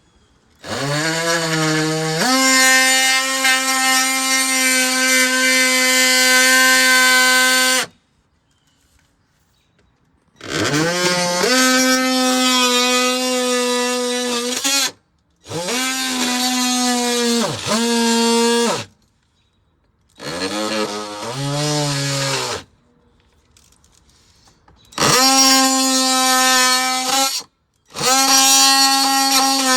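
Handheld power tool cutting the car's plastic underbody cover, run in six bursts: the first about seven seconds long, the rest two to four seconds. Each burst rises to a steady high pitch and falls away when the trigger is released.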